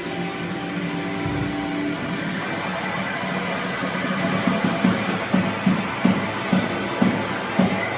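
Live rock band playing an instrumental passage: guitar notes ringing, with a steady beat of about two hits a second coming in about halfway through.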